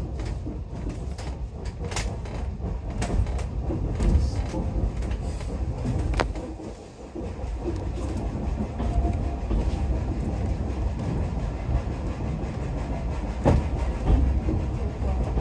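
A heritage railway train running along the track, with a steady low rumble from the wheels on the rails and a few sharp clicks as the wheels pass over rail joints.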